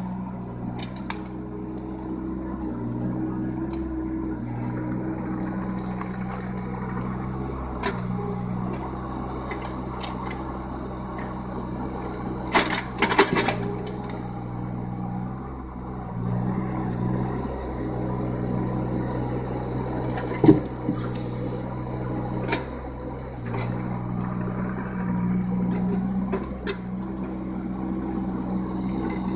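John Deere mini excavator's diesel engine running steadily under hydraulic work, swelling and easing as the arm moves. A cluster of wooden knocks comes about halfway through, and one sharp knock about two-thirds of the way in, as the bucket sets logs in place.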